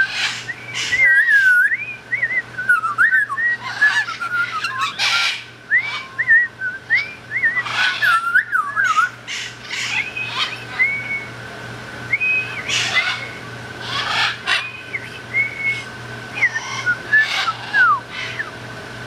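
African grey parrot whistling a song: a long run of short whistled notes that slide up and down, broken now and then by brief harsh noises.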